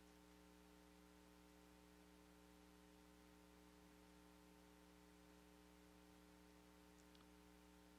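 Near silence: a faint, steady electrical hum of room tone.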